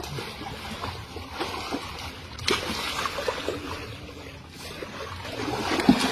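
Water splashing and sloshing, with scattered knocks and a louder splash just before the end.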